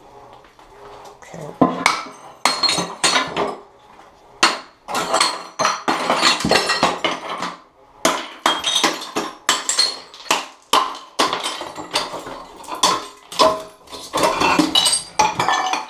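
An old porcelain toilet being broken up with a hammer: many irregular strikes, with the shards cracking and clinking against each other.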